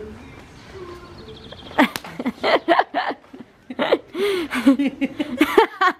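A woman laughing hard in short bursts with squeals and exclamations, starting about two seconds in.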